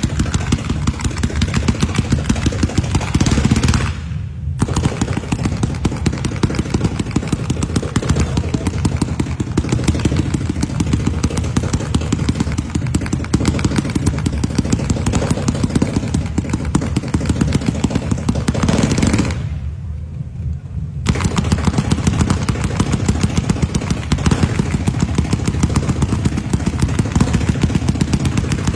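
Firecrackers going off in a rapid, unbroken string of loud pops, with two brief lulls, one about four seconds in and a longer one about twenty seconds in.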